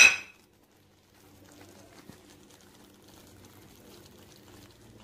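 A utensil knocks against the metal pan with one sharp, ringing clank at the very start, then a brinjal gravy cooks on quietly with faint scattered ticks and crackles.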